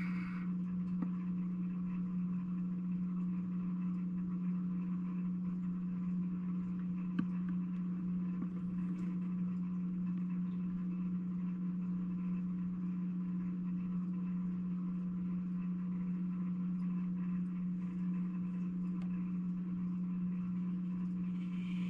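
Steady low electrical hum, unchanging throughout, with a few faint clicks, the clearest about seven seconds in.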